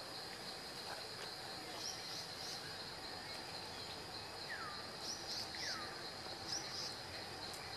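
Outdoor woodland ambience: a steady high insect drone with scattered short bird chirps, and two clean falling whistled calls about halfway through.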